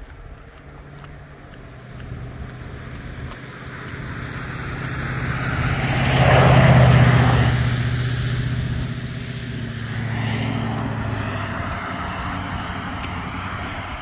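A car passes close by on a wet road: engine hum and tyre hiss on the wet pavement build over several seconds, peak about seven seconds in, then fade, with a smaller swell around ten seconds in.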